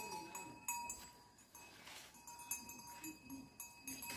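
Leafy greens rustling and crackling on banana leaves as they are gathered and pressed into a pile by hand, in short scratchy strokes.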